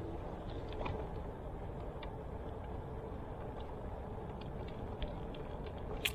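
Steady low rumble of a running vehicle, with a few faint ticks and a sharper click at the very end.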